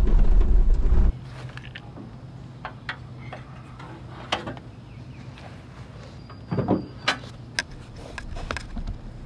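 Suzuki Carry mini truck driving, a loud low rumble heard from inside the cab, which cuts off about a second in. Then scattered light clicks and knocks as a metal ammo can is handled on the steel truck bed, with a few low thuds about two-thirds of the way through.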